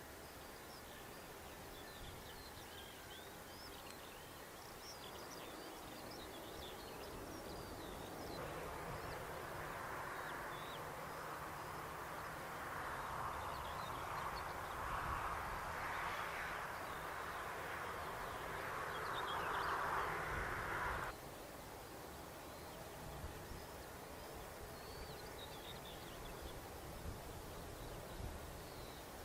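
Small birds chirping in open-air ambience, with the rushing noise of a distant jet airliner swelling over several seconds in the middle and then cutting off abruptly.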